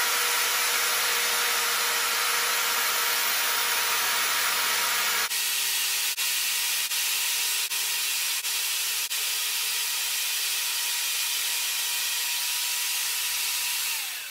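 Electric hand drill mounted in a drill press stand, running steadily as its bit bores down into a round workpiece, a whir with scraping cutting noise. The sound changes about five seconds in, and near the end the motor winds down and stops.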